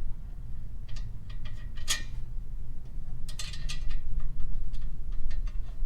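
Scattered light metallic clicks and ticks of nuts and bolts being handled and threaded by hand onto a UTV exhaust's mounting bolts, with a low steady hum underneath.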